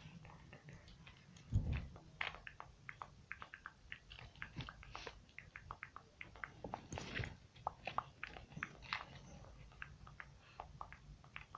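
Hands handling a small plastic camera: many light clicks and taps scattered throughout, with a dull bump about a second and a half in and another about seven seconds in.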